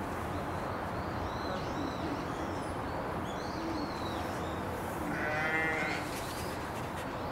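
A farm animal bleats once, a wavering call about five seconds in, over a steady outdoor background with small bird chirps.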